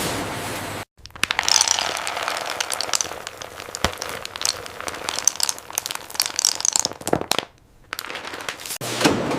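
Dense, irregular crackling and clicking, broken by a brief cut to silence about a second in and a short quiet gap near the end.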